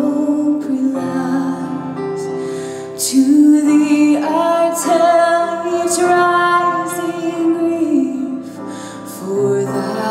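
A woman singing a hymn with instrumental accompaniment, long held notes moving from one pitch to the next.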